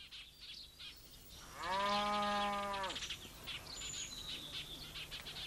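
A cow mooing once, a single drawn-out call lasting about a second and a half, starting and ending with a dip in pitch. Faint bird chirps follow.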